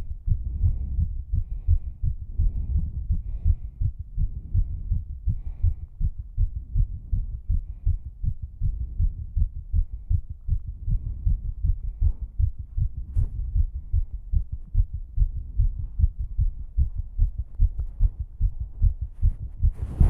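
A woman's heartbeat after exercise, close-miked: low thumps in a rapid, even rhythm.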